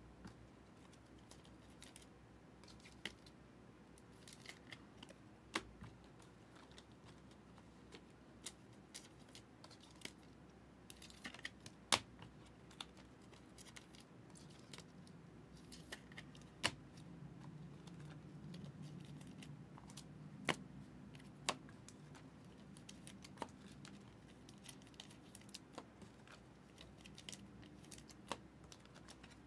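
Faint, irregular clicks and light snaps of trading cards being handled and flipped one by one through a stack.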